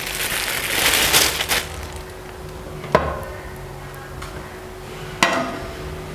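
A dry rustling for about a second and a half, then two sharp clinks of kitchenware about two seconds apart, each with a brief ring, over a faint steady hum.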